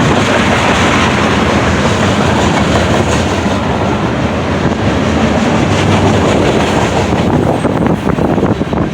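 Manifest freight train's cars rolling past, a steady rumble with steel wheels clattering over the rail joints.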